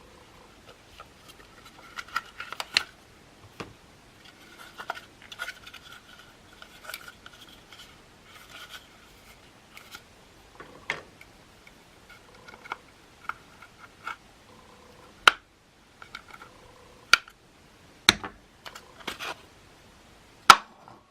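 Hand work on a Makita CL107FD cordless vacuum's plastic housing and parts: scattered clicks, scrapes and light taps, with several sharper clacks in the second half.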